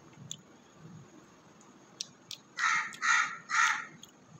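A crow cawing three times in quick succession, about half a second apart, in the second half. A few faint ticks come earlier, while hands knead the dough mix in a steel bowl.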